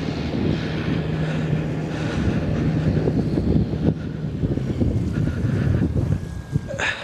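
Wind buffeting the microphone over the steady hum of a radio-controlled P-51D Mustang's 500 kV brushless electric motor and propeller, throttled back on a full-flap landing approach. The hum drops away about four and a half seconds in, and a short sharp noise comes near the end.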